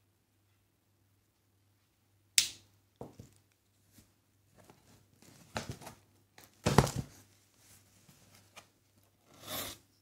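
Parcel contents being unpacked by hand: a sharp knock about two seconds in, then irregular rustling, tearing and knocking of cardboard packaging, loudest about seven seconds in.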